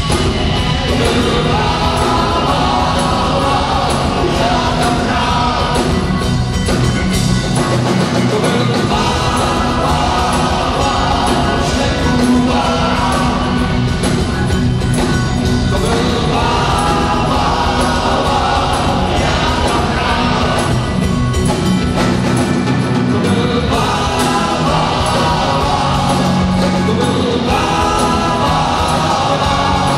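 Live rock band playing a song with sung vocals over electric guitar, bass guitar, keyboards and drums, amplified through the stage PA.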